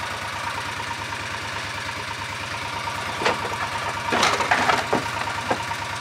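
Small engine of a farm utility vehicle running with a steady low chug. A few sharp knocks and rattles come in the second half.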